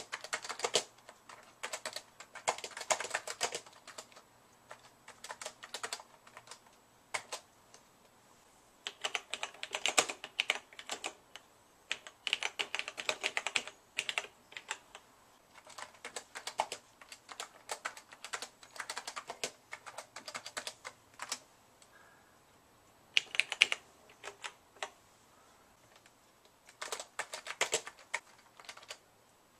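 Typing on the keyboards of a TRS-80 Model 100 and a Tandy Model 102 portable computer: runs of key clicks broken by pauses of one to several seconds.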